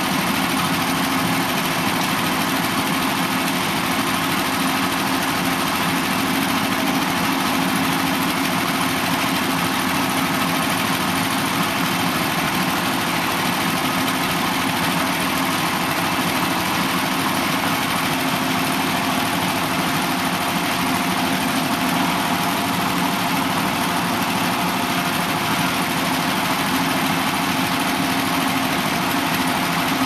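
Portable band sawmill's engine running steadily at a constant pitch.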